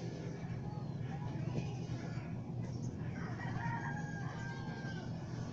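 A rooster crowing once, a long held call starting about three seconds in, over a steady low hum.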